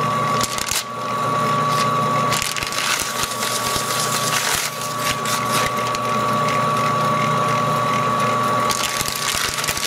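A sheet of paper being fed into meshing 3D-printed plastic gears turned by a metal lathe, crackling and tearing as the gears chew it, heaviest in the middle and again near the end. Under it the lathe and gears run with a steady high whine.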